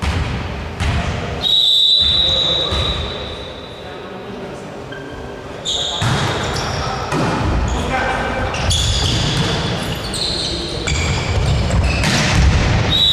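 Indoor ball game in a sports hall. A referee's whistle blows one long blast, followed by several shorter high tones, over a ball bouncing on the court and players' voices echoing in the hall.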